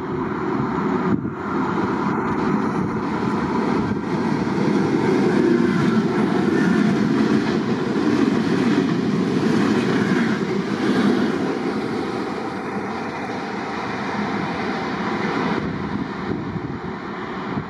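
Passenger train running past along the platform: a steady rumble of wheels on rail that swells as the coaches go by and then eases off as the train moves away.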